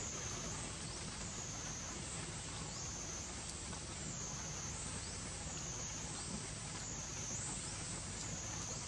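Steady outdoor ambience dominated by a high insect drone that sags in pitch and swells back about once every second, over a low background hum.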